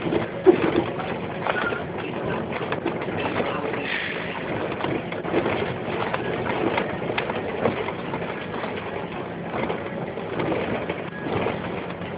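Bus driving, heard from the front of the cab: steady running noise with frequent rattles and knocks from the body, a sharp knock about half a second in.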